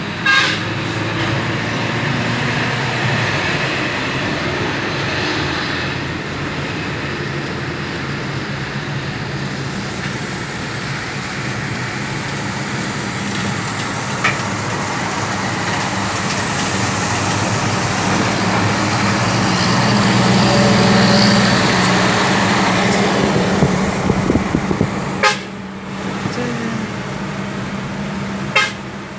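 Traffic heard from inside a moving car: steady tyre and road noise with the low drone of a Mitsubishi Fuso ten-wheeler truck's diesel engine running alongside. The drone grows louder a little past the middle as the car draws level with the truck.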